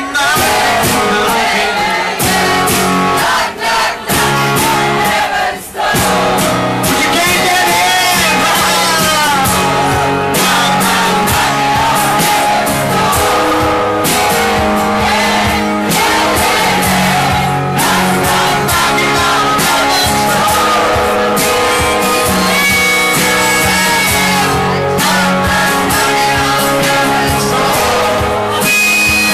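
Live band music: a man singing over guitar. Near the end come held harmonica notes.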